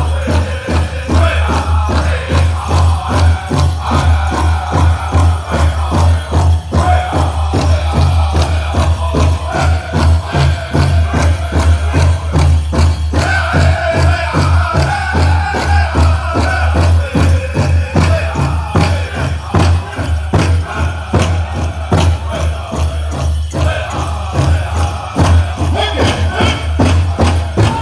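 Powwow drum group singing a dance song over a steady, even beat on a large powwow drum, with bells on the dancers' regalia jingling.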